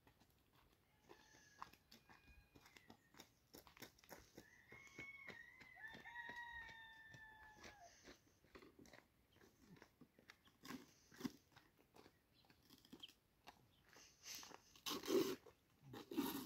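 Faint scattered clicks and knocks of wooden poles and branches being shifted by hand, with two louder wooden knocks near the end. In the middle a rooster crows faintly, one long call of about three seconds.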